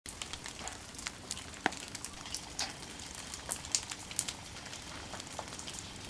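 Wet snow and drips falling on garden foliage: a soft steady hiss with irregular light ticks and taps, one sharper tap about a second and a half in.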